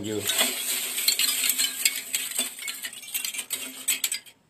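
Rapid tinkling, jingling metallic clicks over a faint steady low hum, breaking off briefly just before the end.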